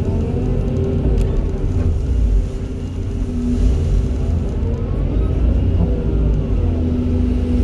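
Volvo and Hitachi excavators working: a deep diesel engine rumble with a steady whine underneath. Higher tones slowly rise and fall as the engines and hydraulics take up and shed load, and there is a single knock about a second in.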